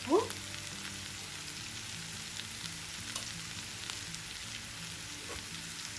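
Sliced bitter gourd frying in oil in a kadai: a steady sizzling hiss with faint scattered crackles.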